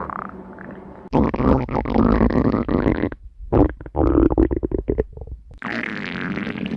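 Stomach growling and gurgling in irregular bursts: a long rumble, a short pause, then a run of short choppy gurgles and another rumble near the end.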